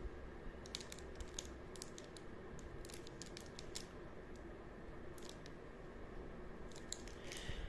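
Faint, scattered crinkles and ticks of a small plastic-film stroopwafel wrapper being turned over in the fingers, over a low steady room hum.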